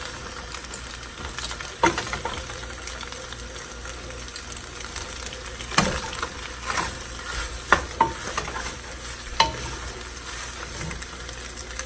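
Pasta in sauce sizzling in a pan as it is stirred, with a utensil scraping and knocking against the pan several times.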